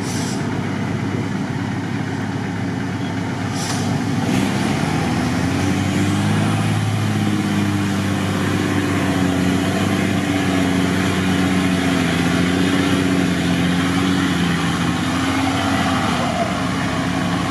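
Mercedes-Benz Unimog truck engine pulling through a muddy water ford, working under load. Its note rises about five seconds in and then holds, wavering a little.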